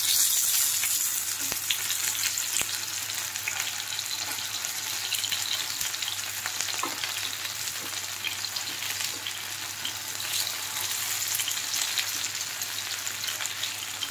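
Corn-and-methi potato kebabs shallow-frying in hot oil in a small pan over full flame: steady sizzling with scattered small crackles and pops.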